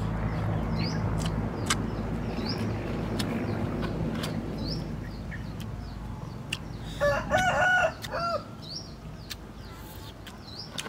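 A rooster crows once, about seven seconds in, in a pitched, wavering call about a second long. Under it is a low steady hum that fades after about five seconds, and short high chirps repeat about once a second.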